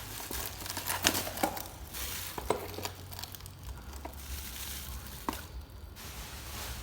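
Packaging crinkling and rustling as it is handled and unwrapped, with a few sharp clicks scattered through it.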